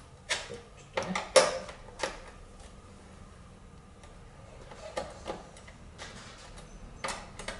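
Hand tools and metal parts clicking and knocking as a Suzuki TS185ER motorcycle is worked on, taking parts off around the frame under the seat. A quick run of sharp clicks in the first two seconds, the loudest about a second and a half in, then a few more around five and seven seconds.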